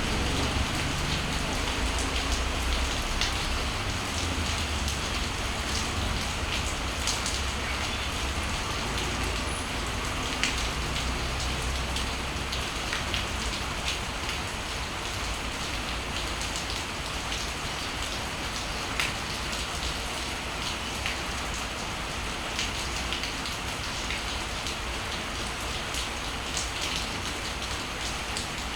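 Steady rain falling, with scattered individual drops striking close by. A low rumble fades away over the first dozen seconds.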